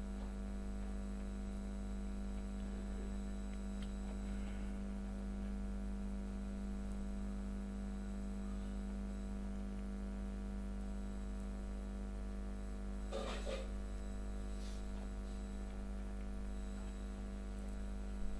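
Steady electrical mains hum, a buzz with many overtones. A brief soft noise comes about thirteen seconds in.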